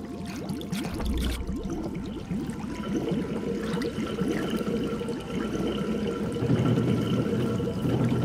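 Underwater ambience made as foley: water bubbling and gurgling continuously. A faint steady hum of a few held tones comes in about three seconds in, and a deeper rumble builds near the end.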